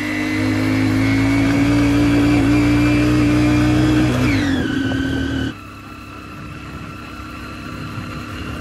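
Motorcycle engine running steadily and loudly, its pitch falling as it eases off about four seconds in. The sound drops abruptly about five and a half seconds in to a quieter, steady engine hum.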